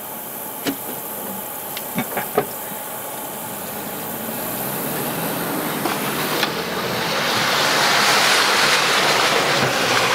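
Four-wheel-drive vehicle driving into a flooded stretch of sandy dirt road: a few sharp knocks in the first couple of seconds, then water hissing and spraying under the vehicle over the engine, swelling from about halfway and loudest near the end.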